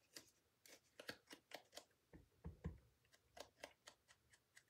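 Faint, irregular light clicks and snips of small cardstock leaf pieces being cut out, about fifteen in all, the loudest about two and a half seconds in.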